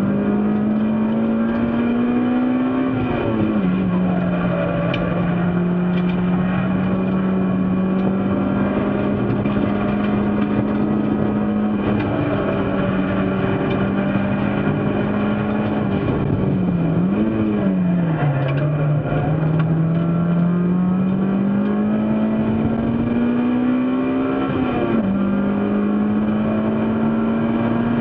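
Race car engine running hard under racing load. Its pitch climbs slowly and drops sharply with upshifts about three seconds in and again near the end. It holds steady through the middle, then dips briefly and falls lower about two-thirds through as the driver lifts for a corner.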